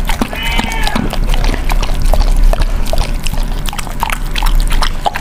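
A dog and a kitten licking a soft, creamy dessert off a plate close to the microphone: a stream of wet lapping and smacking clicks. A brief high-pitched sound comes about half a second in.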